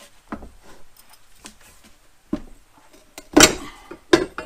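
Metal clanks and scrapes from a manual mini tire changer's steel bar as it is levered around the hub post against the rim, forcing a small mower tire's bead onto its rim. There are several separate knocks; the loudest clank, with a brief ring, comes about three and a half seconds in, and another follows just after four seconds.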